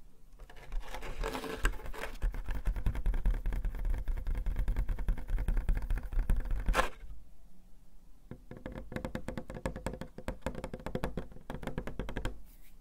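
Close-up crinkling and rustling of a plastic dust cover being handled and pulled off a keyboard in its box: a dense run of fine crackles for about six seconds, then quieter, sparser rustling.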